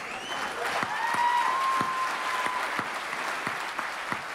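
Audience clapping, with a high drawn-out note from someone in the crowd in the first couple of seconds.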